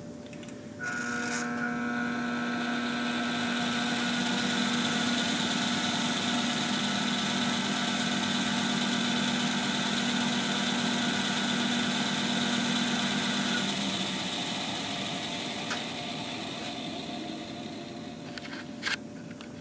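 Hines dynamic balancing machine spinning a 454 big-block Chevy crankshaft with bob weights for a final balance reading: the drive starts about a second in and runs steadily with a hum and a whine, then cuts off after about 13 seconds and the crank coasts down, with a couple of faint clicks near the end.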